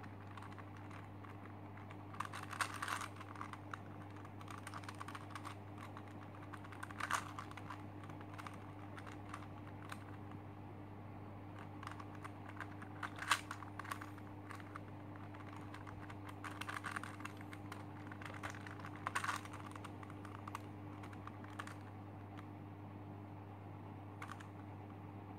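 Plastic layers of a Super Square One (SSQ-1) twisty puzzle clicking and rattling as it is turned by hand to scramble it. The clicks come in short flurries a few seconds apart, over a steady low hum.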